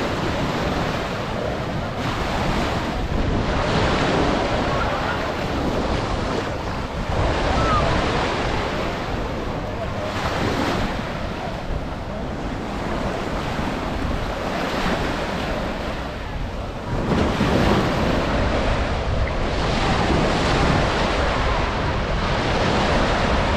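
Ocean waves breaking and washing up on a sandy beach, swelling every few seconds, with wind buffeting the microphone.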